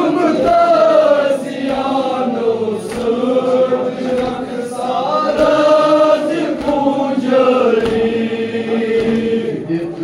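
Male voices chanting a Kashmiri noha, a Shia lament for Husayn, in long held, slowly gliding notes.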